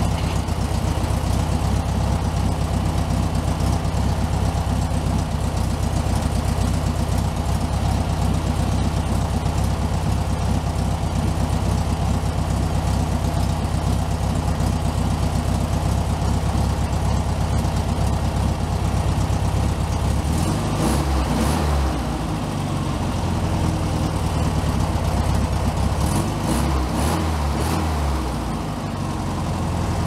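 1964 Volkswagen Beetle's 1500cc air-cooled flat-four idling steadily, warmed up and off the choke, while its idle is being tuned at the carburetor. The idle wavers briefly about twenty seconds in and again near the end, with a few light clicks.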